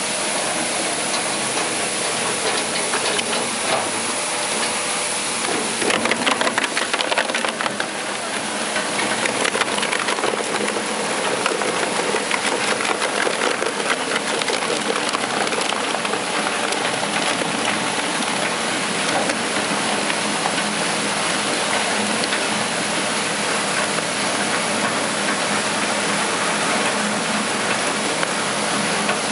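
Single-shaft shredder running and tearing plastic scrap, a steady dense grinding noise, with a burst of loud cracking and crunching about six seconds in.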